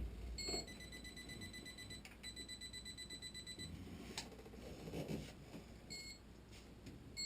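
Handheld electrical tester on the furnace wiring, beeping high to show the circuit it touches has power. It gives a few short beeps and two held beeps of about a second and a half each, and there is a single click a little past the middle.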